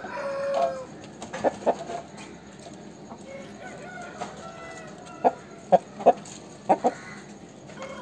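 Aseel roosters: a crow that trails off with a falling note just under a second in, then short, sharp clucks, several of them in quick pairs.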